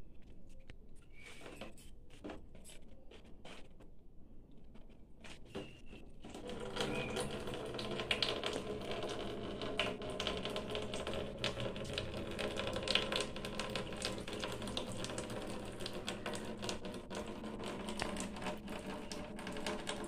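Water poured from a plastic mug over a person's head, running down a plastic sheet and trickling into a plastic basin, with the sheet crinkling. Sparse faint clicks at first, then a steady, dense pattering trickle from about six seconds in.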